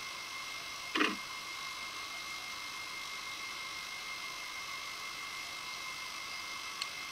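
Steady hiss with a thin, unchanging whine, the underwater camera system's own recording noise. About a second in comes a short squeak that falls in pitch, and near the end a faint tick.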